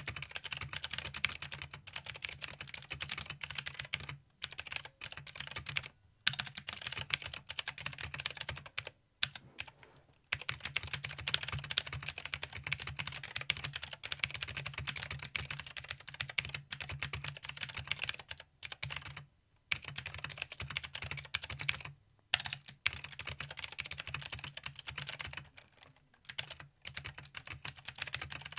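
Fast continuous typing on a mechanical keyboard with clicky Gateron Blue switches, a dense run of sharp clicks broken by a few short pauses.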